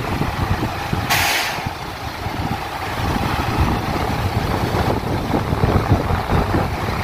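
Diesel engines of heavy water tanker trucks running with a steady low rumble. About a second in comes a half-second hiss of air-brake release.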